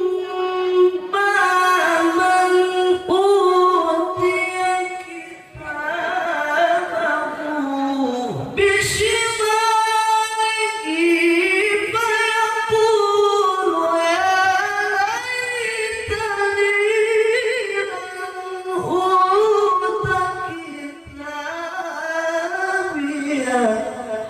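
A man reciting the Quran in the melodic tilawah style into a microphone: long held notes with ornamented rising and falling runs, pausing briefly for breath.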